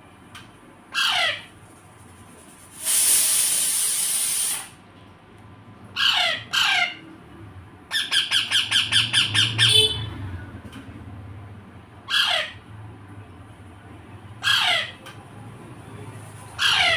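Baby parrot squawking: short harsh calls, each falling in pitch, repeated every two to three seconds. There is a long hissing rasp early on and a rapid run of a dozen quick squawks about halfway through.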